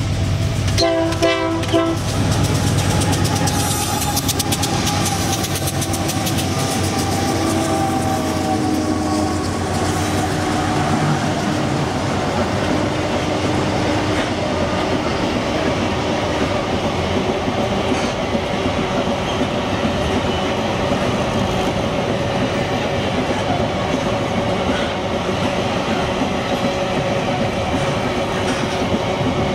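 An empty iron-ore train passing. A short diesel locomotive horn blast comes about a second in. The locomotives' engines then run past and fade. They give way to the steady rolling rumble and clickety-clack of empty ore gondolas over the rail joints.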